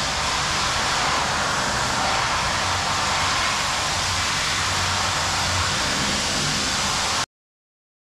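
Steady rushing noise with a low hum underneath, which cuts off suddenly about seven seconds in.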